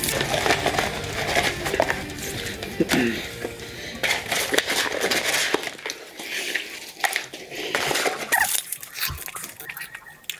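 Fast eating of a fast-food burger meal: crunching, chewing and the crinkle of paper wrappers in quick irregular clicks and crackles, over background music.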